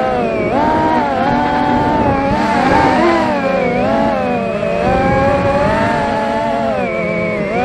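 FPV racing quadcopter's brushless motors and propellers whining, the pitch rising and falling continually with throttle changes.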